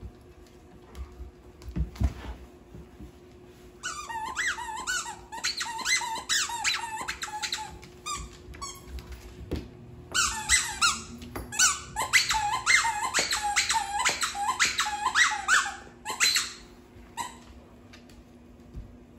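Squeaky dog toy squeaked over and over in quick succession, each squeak a short rising note: one run of about four seconds, a short pause, then a longer run of about six seconds.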